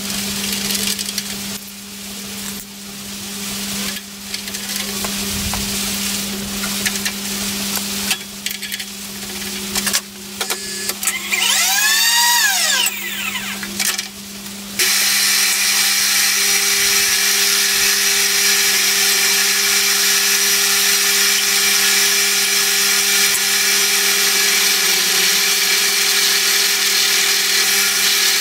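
A steady machine hum with clatter from tooling being fitted into a milling machine's spindle. About halfway through, a drill bit in the mill starts boring into a steel plate, and a loud, steady cutting noise holds from then on.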